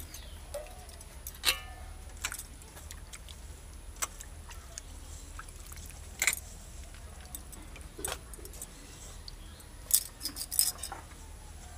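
Stainless steel plate and bowl clinking against each other now and then while small shrimp are washed by hand in the water-filled bowl. One clink about a second and a half in rings briefly, and a quick cluster of clinks comes near the end.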